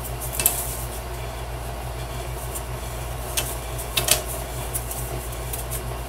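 A few light clicks and taps of small glued wood pieces being handled and pressed together on a scroll saw's table, over a steady low hum.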